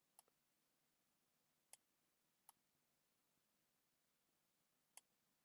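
Near silence broken by four faint, sharp clicks at irregular intervals, from clicking on a computer input device while editing.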